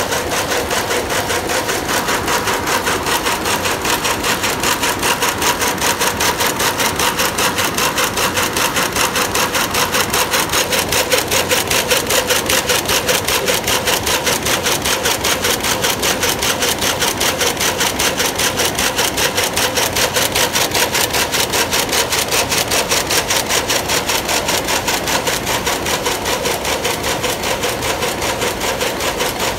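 Dornier rapier loom with an electronic jacquard head weaving at speed: a rapid, even clatter of strokes with a steady hum under it, running without a break.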